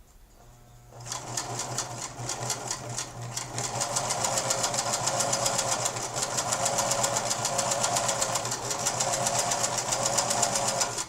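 Singer Merit 4528C electric sewing machine running and sewing a zigzag stitch: a steady motor hum under a fast, even clatter of needle strokes. It starts about a second in, picks up speed over the next few seconds, then stops just before the end.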